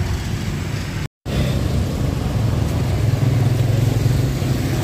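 Street traffic: motorcycle engines running and passing close by, a steady low hum. The sound drops out completely for a moment about a second in.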